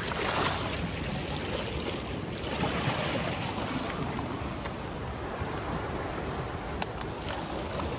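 Sea surf washing and swirling over rocks, with a surge about half a second in and another around two and a half seconds, over wind rumbling on the microphone.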